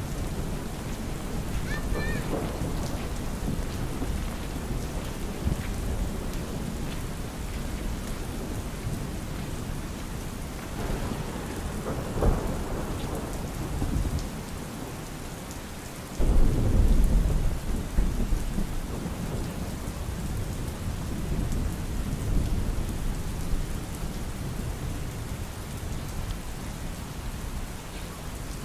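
Steady rain falling on an umbrella. About sixteen seconds in, thunder breaks suddenly and loudly, then rumbles away over a few seconds.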